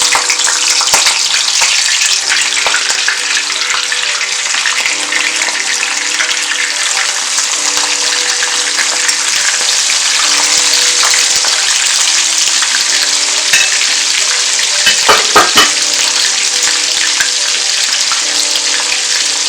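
Prawns sizzling steadily as they fry in hot oil in a pan. A few sharp clicks break through about fifteen seconds in.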